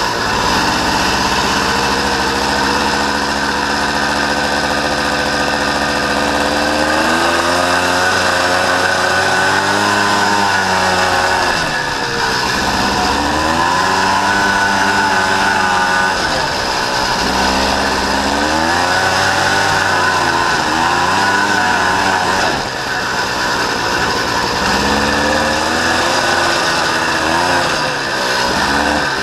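Honda Odyssey FL350R buggy's engine running under way, its revs rising and falling again and again as it is driven.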